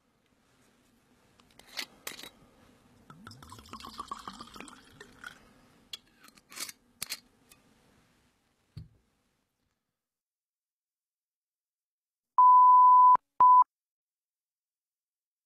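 Faint rustling and scattered clicks for several seconds, then a short thud. Later comes a loud, steady, single-pitch test-tone beep lasting under a second, followed by a second, shorter beep at the same pitch.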